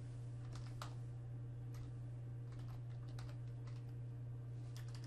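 Computer keyboard keys typed lightly and unevenly as a single word is entered, each keystroke a faint short click, over a steady low electrical hum.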